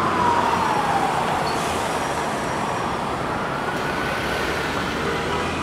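An emergency vehicle's siren wailing. Its pitch falls over the first second and a half, climbs back up by about three seconds in and starts to fall again near the end, over steady street traffic noise and a low engine rumble.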